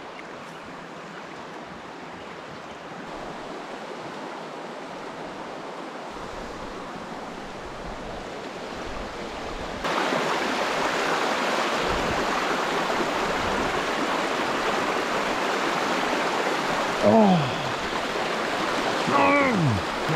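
Shallow rocky river rushing over a riffle, a steady water noise that gets suddenly louder about halfway through. Near the end a man's voice gives two short exclamations that fall in pitch.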